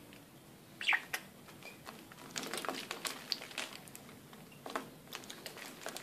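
Budgerigar bathing in a shallow plastic tub of water: irregular bursts of splashing and pattering as it dips and flutters in the water, with a short chirp about a second in.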